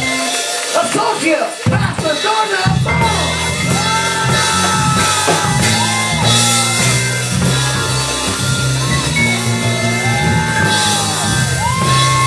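Live church praise music from the band, with a steady low bass line coming in about three seconds in and voices singing or calling over it.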